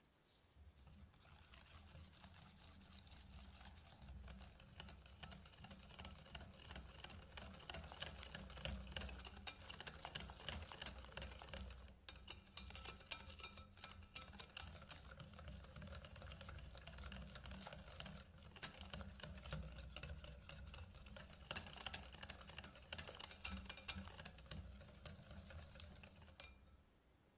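A wire whisk beating cake batter by hand in a glass bowl, with a quick, irregular patter of small clicks as the wires tap and scrape the glass.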